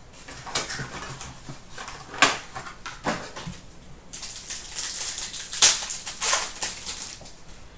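Trading-card pack wrapper crinkling and rustling as it is torn open by hand, with a few sharp clicks, and a denser crackle from about four seconds in as the cards are pulled out.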